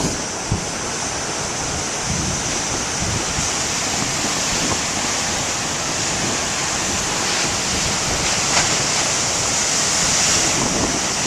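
Big ocean waves breaking on the shore: a continuous rushing wash of surf that swells a little louder toward the end.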